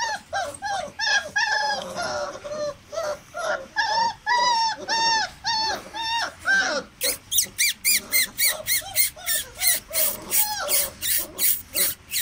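Great Dane puppies yelping and barking over and over in short high calls, about two or three a second. The calls come sharper and quicker from about halfway through.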